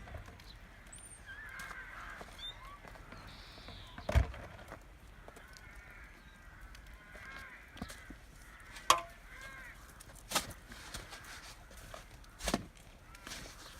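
Birds calling in short, repeated, arched calls, with four or five sharp knocks scattered among them.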